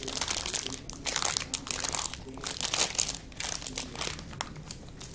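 Irregular crinkling and rustling of foil packaging being handled, busiest in the first three seconds and thinning toward the end, as a bar of white chocolate is unwrapped.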